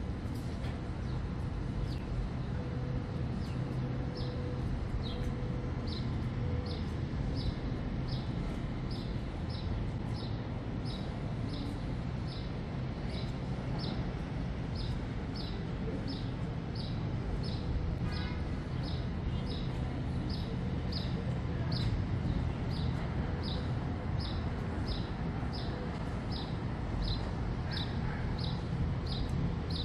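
Waterfront city ambience: a steady low hum of distant traffic and the city. Over it, a short high chirp repeats at a very even pace, about three every two seconds.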